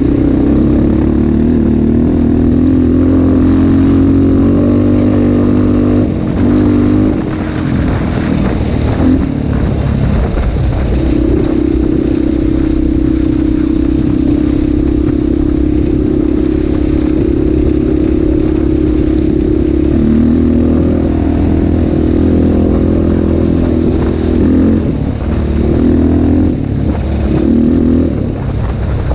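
A quad's engine running hard at a steady speed, easing off the throttle several times and picking back up, with a steady hiss of wind and tyres on gravel.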